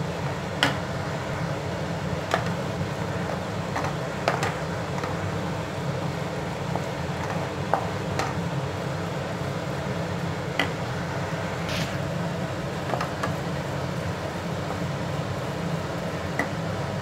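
Wooden spatula stirring vermicelli upma in a nonstick frying pan, with sharp knocks and scrapes against the pan every second or two over a steady low hum.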